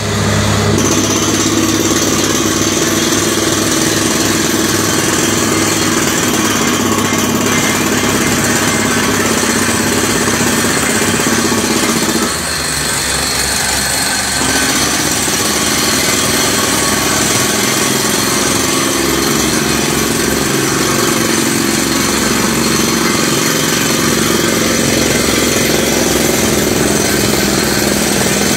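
PDTHR-300 truck-mounted water well drilling rig running under test, its engine and air compressor at work and compressed air blasting dust out around the drill head. A loud, steady noise that dips briefly about twelve seconds in and then comes back.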